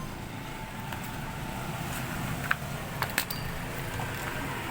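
A few sharp little clicks, three of them within about a second past the middle, from small plastic LED bulbs being handled, over a steady low background hum.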